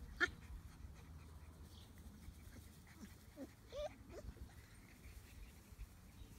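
Four-week-old German Shepherd puppies yipping and whimpering: one short sharp yip just after the start, then a few brief squeaky whines about three to four seconds in.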